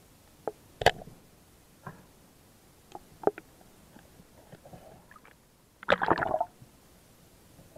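Sharp underwater clicks and knocks from a diver's speargun and gear, one loud knock a little under a second in and several fainter ones after it. About six seconds in comes a dense rushing burst of about half a second, the loudest sound.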